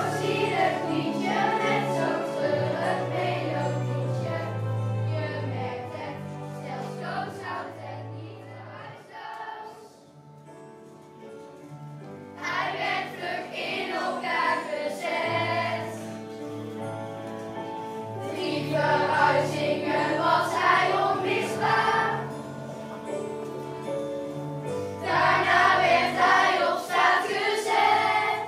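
A children's choir singing a song over a backing track with a steady bass line. About ten seconds in the voices drop away for a short, soft instrumental passage, then the singing returns.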